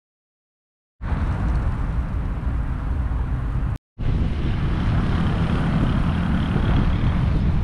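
Steady rumbling and rushing noise of a moving vehicle, starting about a second in, with a brief dropout near the middle where the recording cuts.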